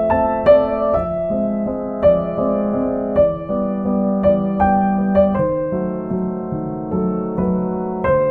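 Background music: soft solo piano, a slow melody of single struck notes over held chords.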